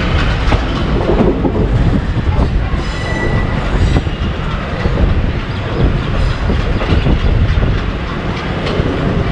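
Passenger train coach running over jointed track and points, wheels clattering with a steady rumble. A brief high squeal about three seconds in.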